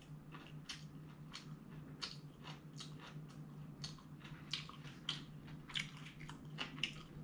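A person chewing a mouthful of fried rice close to the microphone: a string of irregular soft wet mouth clicks and smacks.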